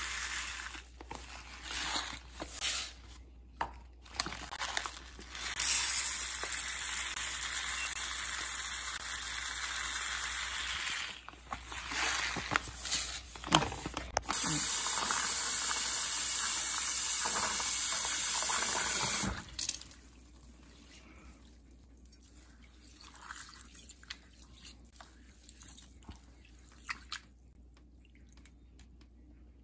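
Water running from a kitchen tap into a sink and bowl in steady stretches, cutting off sharply about two-thirds of the way through. After that come quieter small splashes and sloshing as a hand rubs rice grains in a bowl of water.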